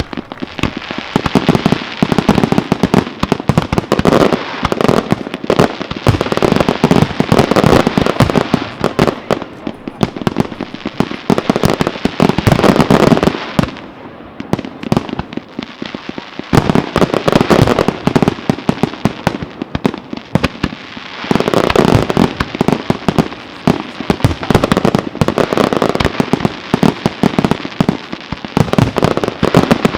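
A fireworks display: a dense, rapid barrage of shell bursts and bangs with crackle. It eases briefly twice, about halfway through and again a few seconds later, then builds back up.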